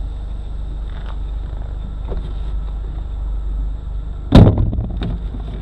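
Jeep engine idling with a steady low rumble, and one loud thump a little over four seconds in as the driver climbs into the seat.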